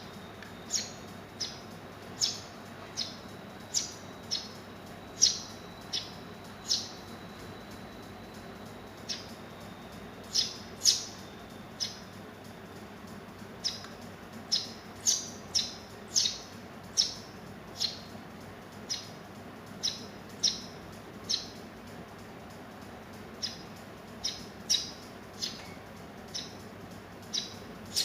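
Young Eurasian tree sparrows giving short, sharp single chirps, roughly one or two a second, with a pause of a few seconds in the middle.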